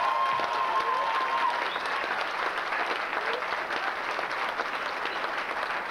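Audience applauding at the end of a song, steady dense clapping throughout; a single high held tone dies away in the first second and a half.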